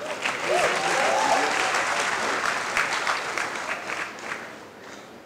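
Audience applauding, swelling quickly at the start and dying away after about four seconds.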